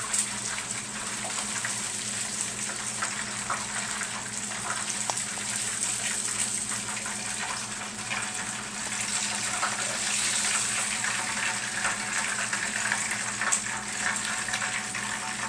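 Flour-dredged snapping turtle pieces frying in hot grease in a skillet: a steady sizzle with scattered small crackles.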